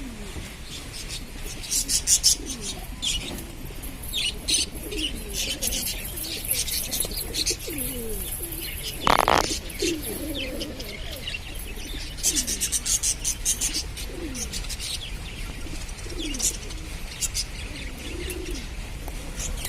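A flock of budgerigars chattering in quick, sharp chirps, over pigeons cooing in low, falling notes. There is one louder, longer sound about nine seconds in.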